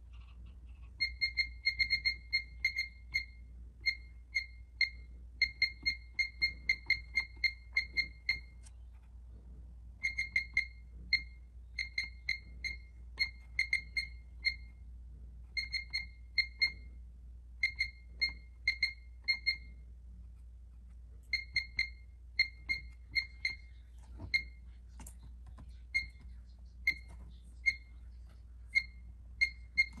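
Pyronix alarm keypad giving a short high beep at each key press as text is keyed in: dozens of identical beeps, some in quick runs of several, others single, with short pauses between.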